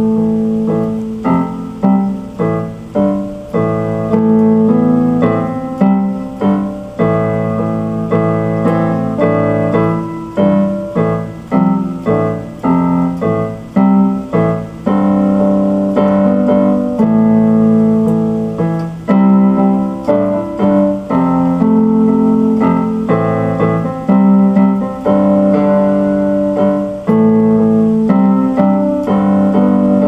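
Instrumental piece played on a keyboard with a piano sound: held chords in the low-middle range with struck melody notes that ring and fade.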